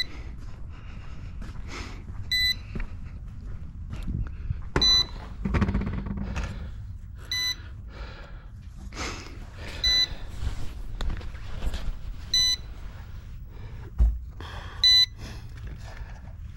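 A short, high electronic beep repeating about every two and a half seconds: the low-battery warning beeper of a Yuxiang F09-S RC helicopter set. Between beeps come footsteps and handling noise, with a heavy thump about fourteen seconds in.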